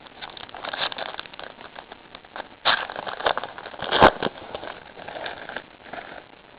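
Foil trading-card pack wrapper crinkling and tearing, with cards being handled. A sharp snap about four seconds in is the loudest moment.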